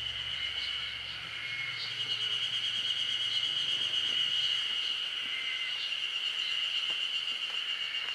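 Chorus of insects shrilling in a steady, high-pitched drone with a faint quick pulse.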